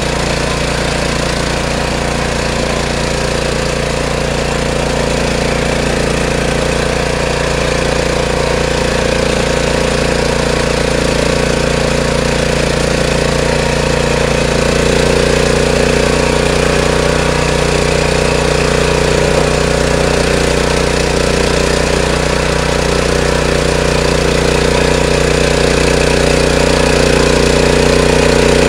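Walk-behind power tiller's small engine running steadily under load while its rotary tines churn through soil, earthing up the rows.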